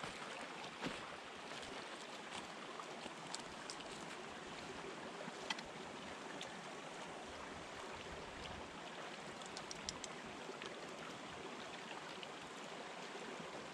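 A small flow of mountain spring water running down a mostly frozen waterfall: a steady trickling rush, with a few faint clicks.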